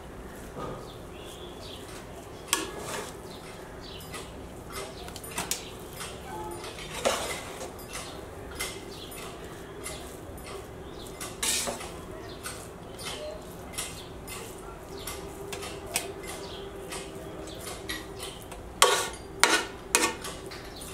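Spatula scraping and tapping against the sides of a metal pot as cooked rice is gently turned over and mixed. The scrapes and taps come irregularly, with a few louder knocks near the end.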